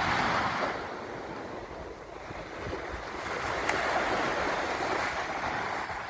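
Small sea waves breaking and washing up on a sandy beach. The surf swells twice, once at the start and again through the middle, with a single small click partway through.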